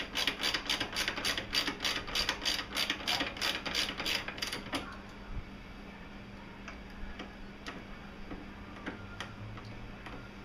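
Socket ratchet wrench clicking quickly and evenly, about five clicks a second, as a 10 mm radiator support bracket bolt is turned; the clicking stops about five seconds in, leaving a few faint ticks.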